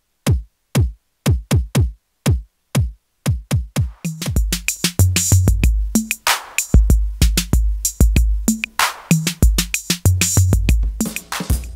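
Modular-synth drum pattern played through a vactrol-based optical compressor. It opens with sparse synthesized kick-like hits that each drop quickly in pitch; about four seconds in, a fuller beat with hi-hat and snare hits and a low bass line joins in.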